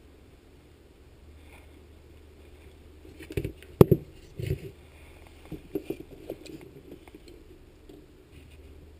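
Knocks and clicks of a small condenser fan motor being handled and set down on a metal workbench. A sharp knock comes a little under four seconds in among a few clunks, followed by a run of lighter clicks a couple of seconds later.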